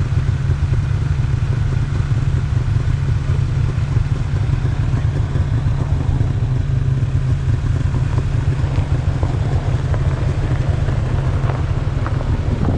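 Jeep driving: a steady, deep engine and road rumble.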